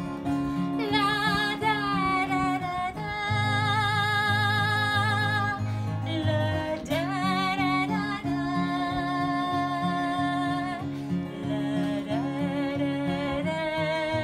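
Acoustic guitar strumming a steady instrumental break, with a long-held melody line that wavers slightly in pitch above it, the notes changing every second or two.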